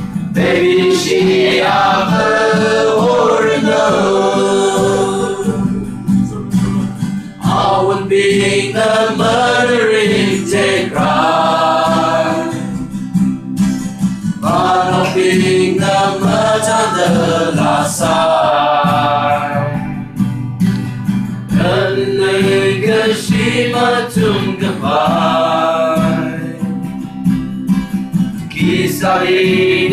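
A group of people singing together, accompanied by two acoustic guitars. The singing comes in phrases with short breaks about every seven seconds.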